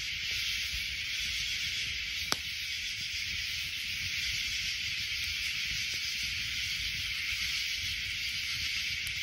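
Steady high-pitched hiss with a faint low rumble beneath it, broken by one sharp click a little over two seconds in.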